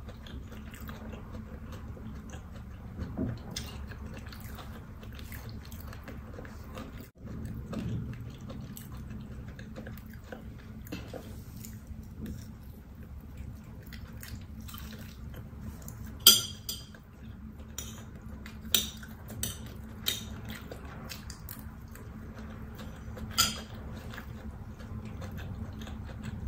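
Mealtime eating sounds: chewing, with a few short, sharp clinks of a spoon against a plate, mostly in the second half, over a steady low hum.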